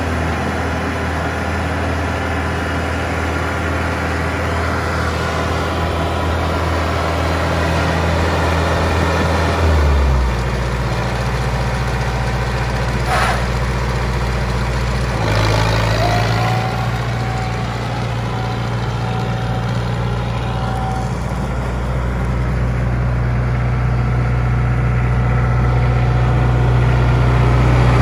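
Kubota M9000 tractor's four-cylinder diesel engine idling steadily. Its note shifts about ten seconds in and again around fifteen seconds, with a brief sharp squeak near thirteen seconds. The engine grows a little louder near the end.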